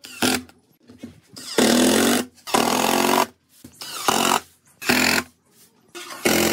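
Cordless impact driver running in about six short bursts, hammering screws through wooden slats into a pine board.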